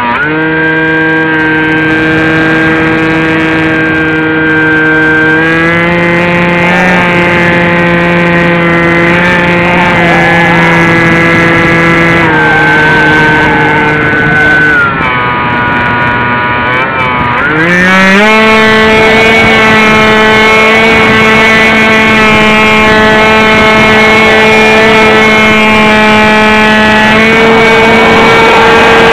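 Model airplane's motor and propeller heard from the onboard camera, a loud steady whine. Its pitch shifts a little several times, dips and wavers, then sweeps up to a higher steady pitch about eighteen seconds in.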